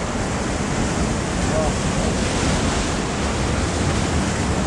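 Ocean waves breaking and washing against the shore: a steady rush of surf, with wind on the microphone.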